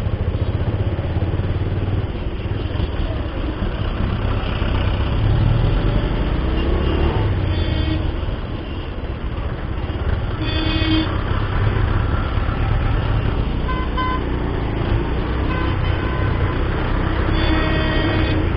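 A Bajaj Pulsar 150 motorcycle's single-cylinder engine runs steadily while riding in traffic. Vehicle horns toot briefly three times: about eight seconds in, about eleven seconds in, and near the end.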